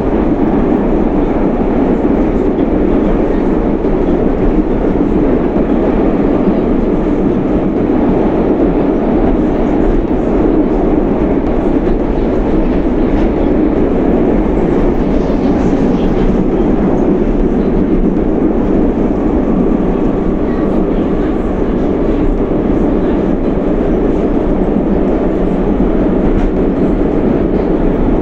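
Moscow metro 'Rusich' (81-740/741) articulated train running at speed, heard from inside the car: a loud, steady rumble of wheels on rail and running gear that stays even throughout.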